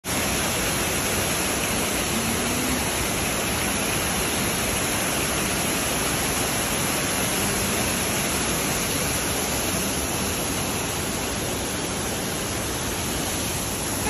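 Waterfall pouring over a rock ledge at close range: a steady, even rush of falling water.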